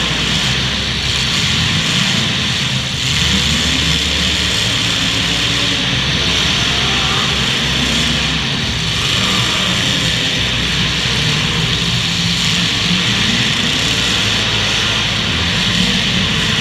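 Several demolition derby cars' engines running loudly and revving, with their pitch wavering up and down throughout.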